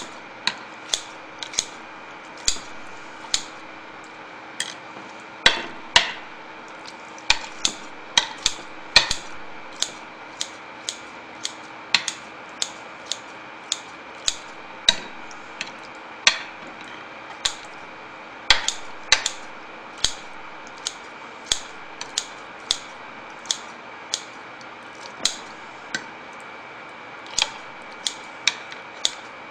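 Kitchen scissors snipping leftover stir-fried pork and carrots on a plate: a long run of sharp, irregular clicks, a bit more than one a second, as the blades close through the food.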